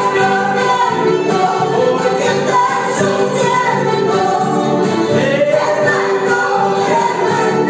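Live Christian song: a woman and men singing together, accompanied by accordion and strummed acoustic guitar.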